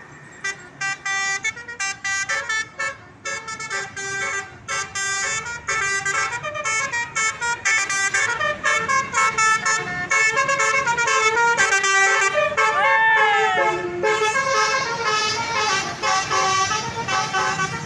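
Bus 'telolet' multi-tone horn, a Basuri-type horn, honking a quick tune of short notes that gets louder after about six seconds. A few sliding, falling tones come a little past halfway.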